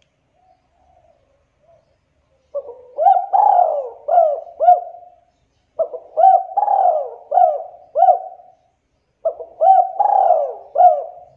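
Spotted dove cooing: three phrases starting about two and a half seconds in, each made of four or five short coos that rise and fall in pitch.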